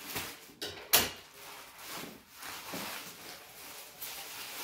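A laptop's shipping package being handled and opened by hand: irregular scraping and rustling, with one sharp knock about a second in.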